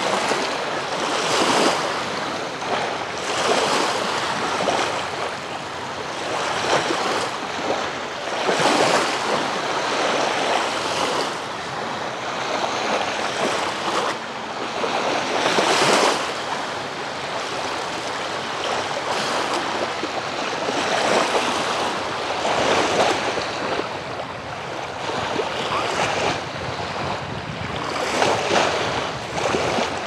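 Small Black Sea waves washing onto a shallow sandy shore, the surf swelling and fading every few seconds.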